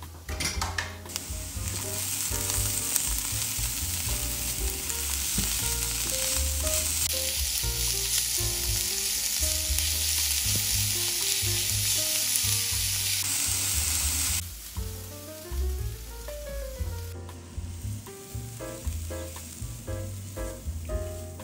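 Chopped onion, grated carrot and garlic sizzling in oil in a frying pan as they are stirred with a silicone spatula. The sizzle cuts off suddenly about two-thirds of the way through.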